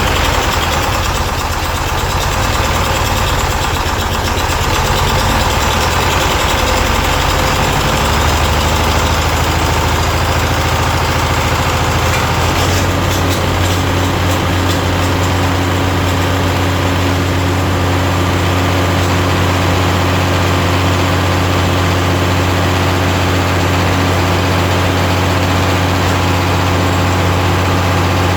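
Tractor engine idling steadily; its tone shifts slightly about a third of the way through.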